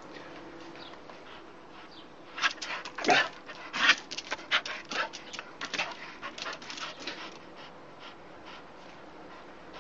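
An excited dog panting rapidly in short, quick breaths, with a couple of louder huffs near the start of the run. The panting starts a couple of seconds in and fades out before the end.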